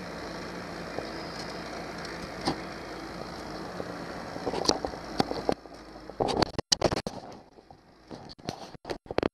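Johnson 90 hp V4 outboard motor running steadily at low speed, cutting off suddenly about five and a half seconds in. A string of sharp knocks and clicks follows.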